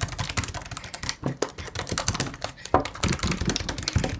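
Slime being poked hard and fast with fingertips, giving a rapid, uneven run of sharp wet clicks and squelchy pops, several a second.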